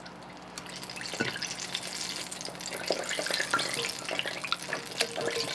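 Hot peanut and vegetable oil sizzling and crackling in a cast-iron skillet, heated to frying temperature. The crackle grows denser about half a second in.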